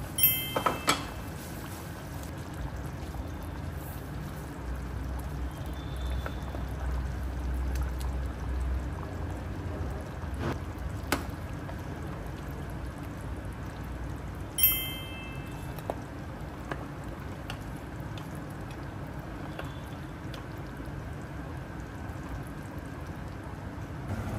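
Thick nihari gravy simmering and bubbling in a nonstick pan, a steady wet bubbling. A steel ladle clinks sharply against the pan a few times about a second in and again around two-thirds through.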